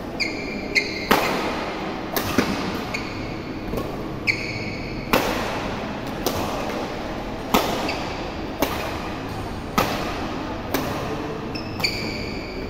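Badminton rally: rackets striking the shuttlecock with sharp cracks about once a second, around a dozen times, each ringing briefly in the hall. Shoes give short high squeaks on the court floor several times in between.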